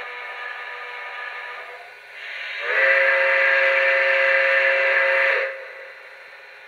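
Steam whistle from the onboard sound system of a Lionel Legacy Nickel Plate Road 2-8-0 Consolidation model locomotive: a softer tone first, then a loud, steady chime blast of about three seconds that cuts off.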